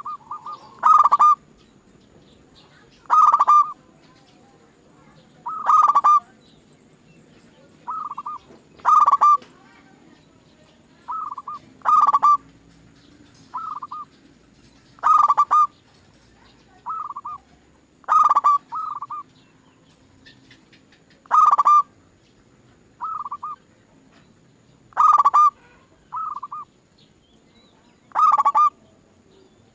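Zebra dove (perkutut) cooing: short rolling coo phrases repeated every two to three seconds, some louder and some softer.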